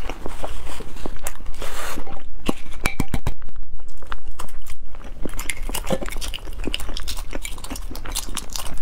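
Shell of a boiled fertilized egg (huozhuzi) being cracked and picked off by hand, close to the microphone: many small sharp cracks and crackles, with some chewing mixed in.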